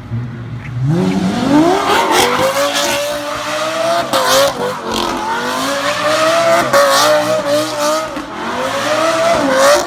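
Lamborghini Gallardo Superleggera's V10 revving up from a low idle about a second in and held at high revs with wavering pitch, while the rear tyres spin and squeal in a smoky donut.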